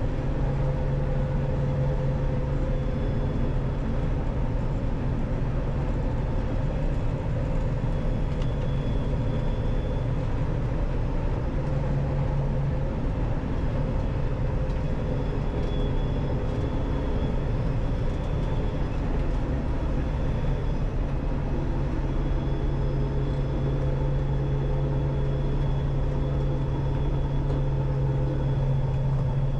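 Combine harvester running steadily, its engine and machinery making a constant low drone.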